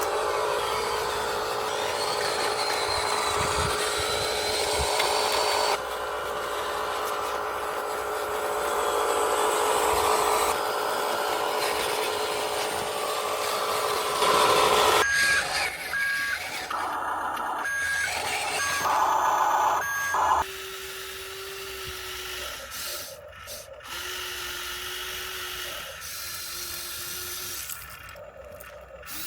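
Electric motors and screw-drive actuators of an ACV PROFI RC excavator whining as it is worked, with the pitch and mix changing as different functions are moved. Partway through the sound turns stop-start, and in the last third short separate whines come as single functions are driven one at a time.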